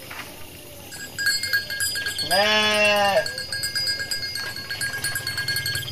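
A sheep bleating once, a single call of about a second that begins a little over two seconds in and drops in pitch as it ends.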